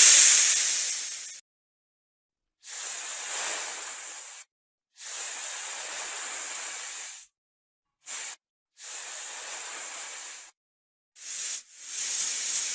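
Snake hissing in a series of separate breaths, most lasting one to two seconds with short silent gaps between them, one of them very brief.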